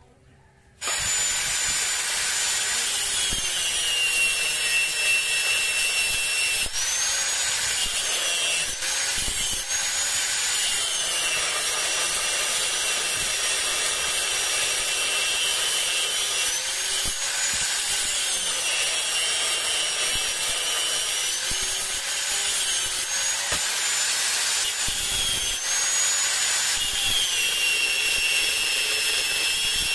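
Angle grinder with a thin cut-off disc cutting into 1-inch steel pipe: a loud, high whine that starts abruptly about a second in and runs on. Its pitch dips and recovers again and again as the disc is pressed into the metal.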